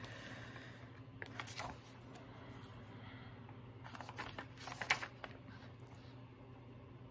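Paper rustling as stickers are peeled from a sticker sheet and pressed onto a planner page, in two short spells about a second in and about four seconds in, with a sharp tick near the five-second mark, over a faint low hum.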